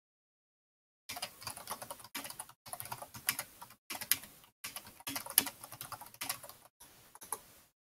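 Typing on a computer keyboard: quick runs of keystrokes in several bursts with short pauses between them, starting about a second in.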